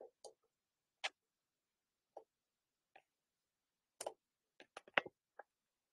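Scattered short clicks and taps of a hand handling the recording phone, about a dozen at irregular intervals, bunched around four to five seconds in.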